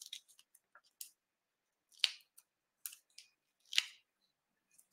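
A few short, crisp paper crackles, about a second apart: foam adhesive dimensionals being peeled off their backing sheet and pressed onto a die-cut cardstock cup.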